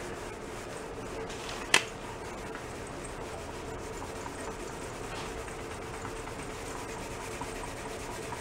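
Scouring pad scrubbing the painted motorcycle fuel tank, rubbing off black spray paint over the original red. A single sharp click a little under two seconds in, with a faint steady hum underneath.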